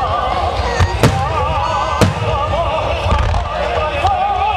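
Aerial firework shells bursting in a few sharp bangs, the loudest about a second and two seconds in, over a steady low rumble. Music with a wavering melody plays throughout.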